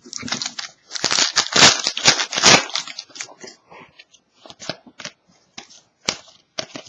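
Trading-card pack wrapper crinkling and tearing open by hand. The loudest stretch of ripping and crackling comes about one to three seconds in, followed by scattered lighter crinkles and clicks.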